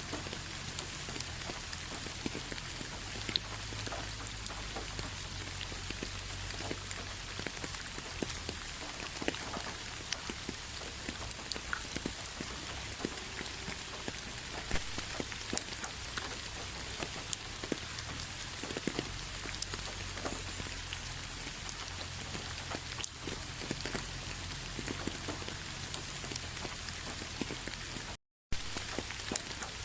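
Steady rain falling, with many individual drops ticking and splashing through it. The sound cuts out for a fraction of a second near the end, then resumes.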